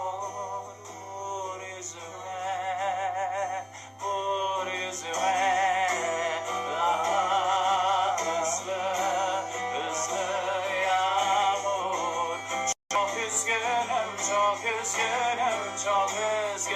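Music: a wordless melodic passage of a Turkish pop ballad, the tune carried with strong vibrato over a steady backing. The sound cuts out for an instant about three-quarters of the way through.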